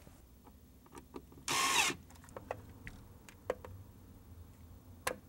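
A cordless drill-driver runs in one short burst of about half a second, roughly one and a half seconds in, tightening a screw that holds the door weather stripping. Light clicks and taps follow.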